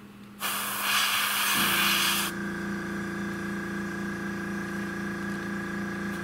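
Airbrush spraying gloss clear coat: a loud hiss of about two seconds. About a second and a half in, the air compressor's motor starts up and runs on with a steady hum.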